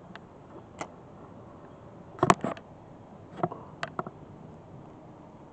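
Handling noise: a few scattered clicks and knocks as the fishing rod and camera are handled, the loudest a quick cluster a little over two seconds in.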